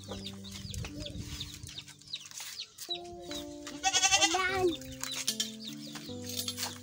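Chickens clucking over soft background music of long held notes. About four seconds in, a louder wavering animal call stands out.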